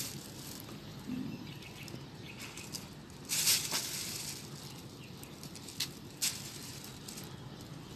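Rustling and scraping of dry debris and decayed coffin lining being sifted by hand, in short bursts, the longest about three and a half seconds in, over a steady outdoor hiss.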